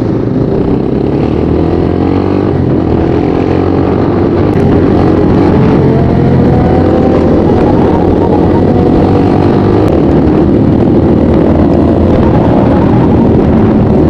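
Motorcycle engine accelerating on the road, its pitch rising over several seconds as it pulls away, with other motorcycles running alongside.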